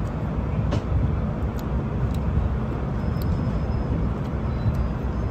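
Steady, low outdoor background rumble with a few faint clicks scattered through it.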